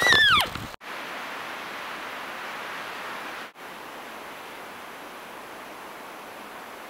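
A loud, high whistling animal call that slides down in pitch, cut off within the first second; then a steady rushing hiss of wind, broken by a brief dropout about halfway through.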